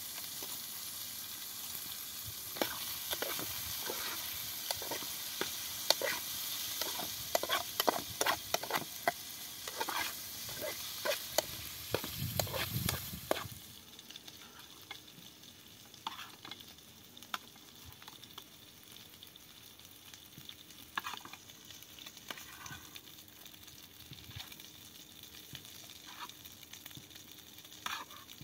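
Meat frying in a metal pan over a wood fire: a steady sizzle with a metal spoon scraping and clinking against the pan. About halfway through the sizzle drops away, leaving only occasional clinks of the spoon on the pan and plate.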